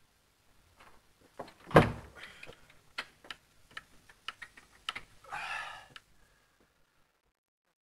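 A wooden door bangs with a heavy thump about two seconds in. It is followed by a string of sharp clicks and knocks, then a brief rasping sound about five seconds in.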